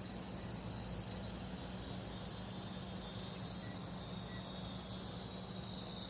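Outdoor ambience: a steady high-pitched chorus of insects over a low, steady hum.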